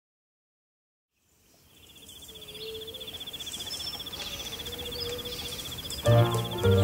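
Nature ambience fading in from silence: a steady high pulsing insect trill with a few bird chirps. Music with deep bass notes comes in near the end.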